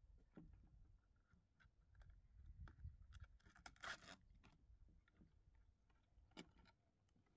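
Faint crinkling and scraping of sandpaper being handled and fitted onto a hand sanding block, with scattered small clicks and a louder rustle about four seconds in.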